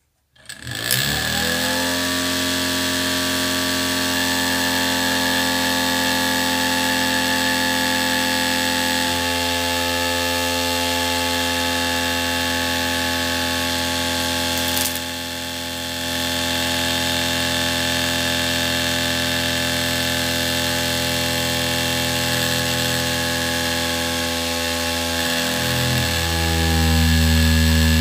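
Small DC motor salvaged from a CD drive, driving a homemade fan: it spins up about half a second in with a rising whine, then runs at a steady whine and buzz. Its tone shifts a few times and it grows louder near the end.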